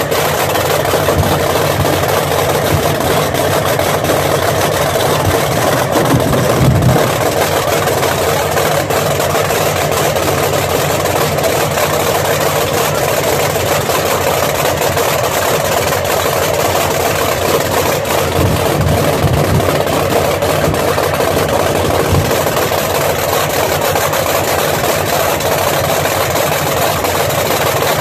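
Supercharged V8 of a Willys gasser drag car idling steadily. It picks up briefly about six seconds in and again a little past the middle.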